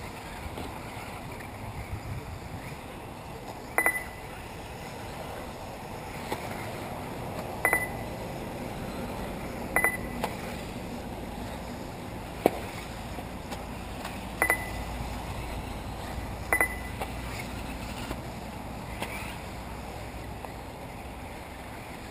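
Short electronic beeps from an RC race lap-timing system, about five of them a few seconds apart, over a steady outdoor background hiss.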